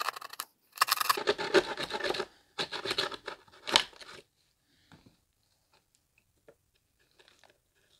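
Hand plasterboard saw rasping through a dot-and-dab plasterboard wall in quick back-and-forth strokes, in several short runs over the first four seconds. Then it stops, leaving only a few faint crackles.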